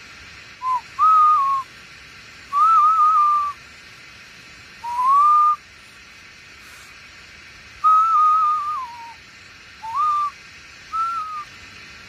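A person whistling a short tune in seven brief phrases, a clear pure whistle that bends up and down, over a steady faint background hiss.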